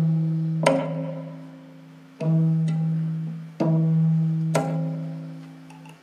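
Huesocordio, a zither made from human vertebrae, struck with chopsticks and toy cockroaches, heard through a small loudspeaker. Low string notes are struck a few times, about one to one and a half seconds apart, with a click at each stroke, and each note rings and slowly fades. The sound cuts off near the end.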